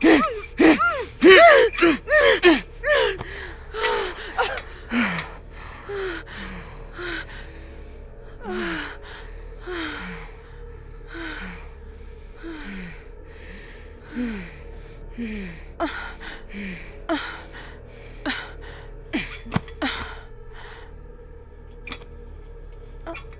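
A woman sobbing and gasping. The sobs come fast and loud at first, then slow to about one a second, each falling in pitch. A faint steady hum runs underneath, with a few sharp clicks later on.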